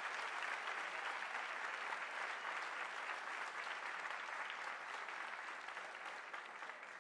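Concert audience applauding, a dense clatter of many hands clapping that slowly dies down.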